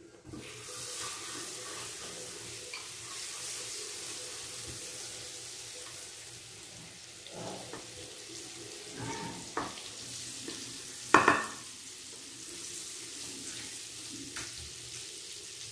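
Butter sizzling steadily as it melts in a hot pan, the hiss starting as soon as it drops in. A wooden spatula pushes it about, with a few short knocks against the pan, the sharpest about eleven seconds in.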